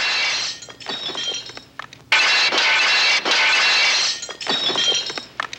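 Window glass shattering as a mannequin is thrown through it: one crash fading into tinkling shards, then a second sudden crash about two seconds in that also trails off into falling pieces.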